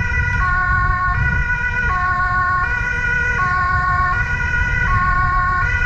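Swiss police car's two-tone siren, heard close up from the car's roof, switching back and forth between a higher and a lower tone about every three quarters of a second. A steady low rumble runs underneath.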